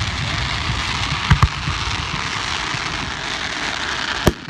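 Fireworks display: a steady crackling hiss, broken by two sharp bangs close together about a second in and another bang near the end.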